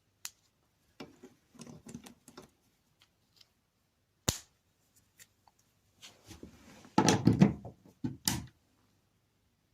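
Plastic clicks and knocks of a UK three-pin mains plug being handled as its fuse is refitted and the plug is put back to the socket: light rustling, a single sharp click about four seconds in, then a louder run of knocks and clicks near the end.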